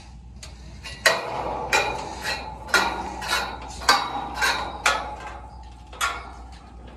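Sharp metallic clinks and knocks from a ninja-course ring-and-cane rig on a steel truss, as an athlete swings along it. About nine strikes come at irregular spacing, starting about a second in.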